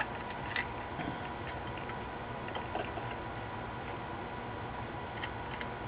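Quiet steady background hiss with a few faint light ticks of a soldering iron being worked against a circuit board.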